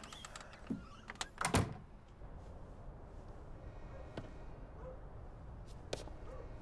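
A door banging shut: a few knocks about a second in, the loudest about a second and a half in, followed by faint room ambience with a couple of small clicks.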